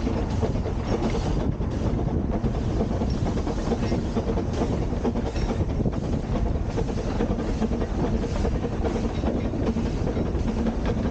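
2 ft narrow-gauge steam train, double-headed, running along the line, heard as a steady low rumble.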